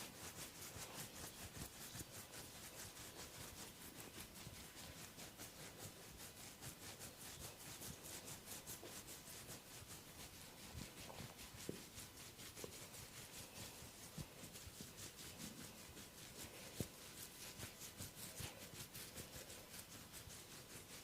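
Faint, quick rhythmic rubbing on hair and scalp during a head massage, about four or five strokes a second, with a few soft clicks in the second half.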